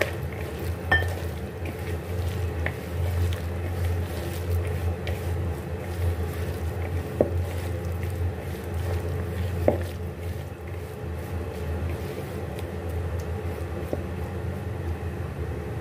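A hand squishing and mixing shredded potato strips coated in flour, spices and a little water in a plastic bowl, with a few light clicks, over a steady low hum.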